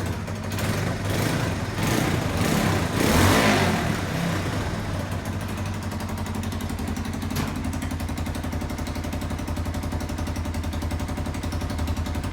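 Italika 250Z motorcycle's single-cylinder engine running, revved up in the first few seconds and then settling into a steady idle.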